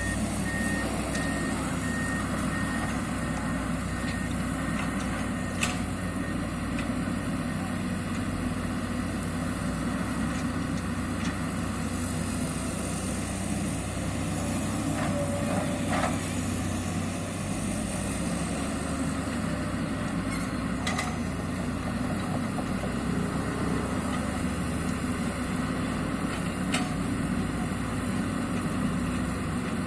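SANY hydraulic excavator's diesel engine running steadily, with its travel alarm beeping rapidly for the first five seconds or so. A few sharp metallic knocks sound now and then.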